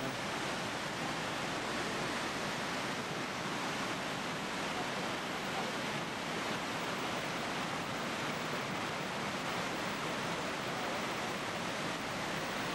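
Rhine Falls water rushing over rock ledges: a steady, unbroken rush of falling water.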